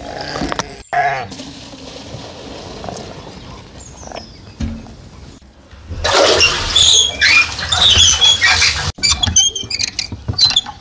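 A bucket splashing and filling in the water at the bottom of a brick-lined well, the loudest sound, for about three seconds in the second half. Before it, a dog gnawing a bone; near the end, a run of sharp clicks.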